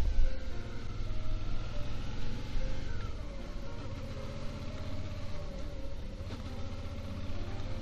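Motorcycle engine running while riding, under a steady low rumble of wind and road noise, with the engine note briefly rising about three seconds in.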